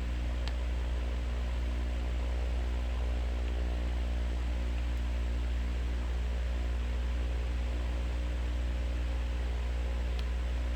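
Electric fan running steadily: an even airy hiss over a low motor hum with a few steady tones.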